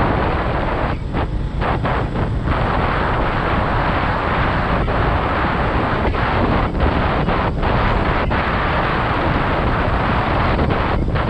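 Steady rush of wind on the microphone of a moving motorcycle, with the bike's road noise underneath. The rush thins briefly a few times, around one to two seconds in and again near the end.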